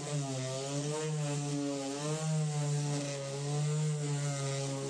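Small electric detail sander running steadily against a plywood cabinet, its motor whine wavering slightly in pitch as it is pushed over the wood. The wood is being sanded down to prepare it for finishing.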